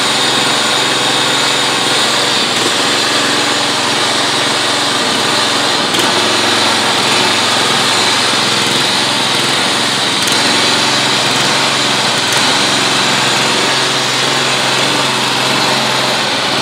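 John Deere JX75 walk-behind mower engine running steadily at a constant speed, still cold after a choked pull-start.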